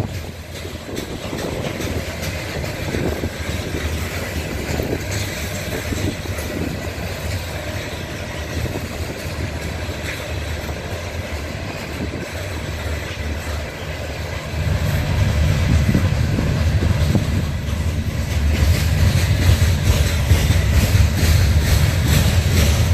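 Loaded coal hopper cars of a freight train rolling past: a steady rumble and rattle of steel wheels on the rails, getting louder a little past the middle.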